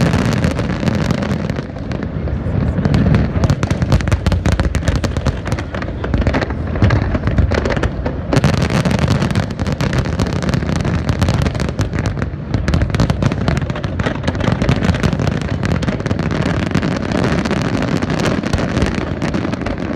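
Fireworks finale barrage: aerial shells bursting in rapid, overlapping succession, a dense run of bangs with no pause between them.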